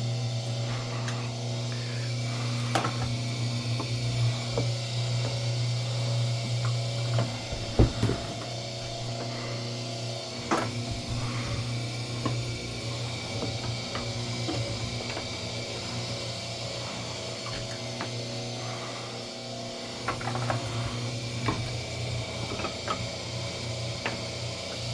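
Motor of a wire stripping machine running with a steady low hum while copper wire is fed through it, with scattered clicks and scrapes of the wire and blade. The hum dips briefly about eight seconds in and again later.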